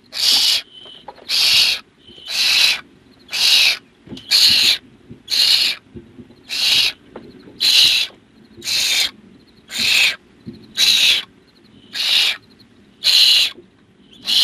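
Barn owl nestlings giving their hissing food-begging "snore" calls: one harsh hiss about every second, kept up in a steady rhythm.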